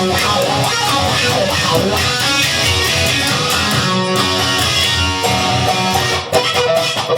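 Rock song instrumental break: electric guitar strumming and playing over bass and a steady beat, with no singing.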